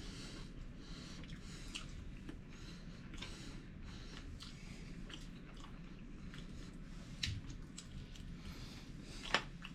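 A person chewing and eating cooked bluegill up close, with soft repeated mouth and chewing noises and a few small clicks, the sharpest near the end.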